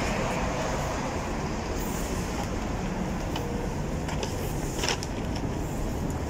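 Steady outdoor background noise, an even hiss and rumble with no clear tone, broken by a few faint clicks and one sharper click about five seconds in.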